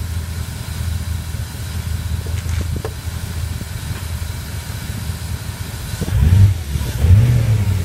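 BMW E34 540i's 4.0-litre V8 idling steadily, then revved briefly twice near the end.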